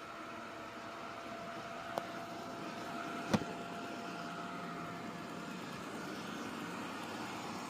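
Pretty Care robot vacuum running, its motor and brushes giving a steady whirring hum with a faint whine. Two sharp clicks come through, one about two seconds in and a louder one a second later.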